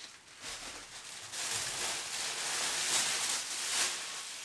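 Thin plastic grocery bags rustling and crinkling as they are handled and opened, getting louder about a second and a half in.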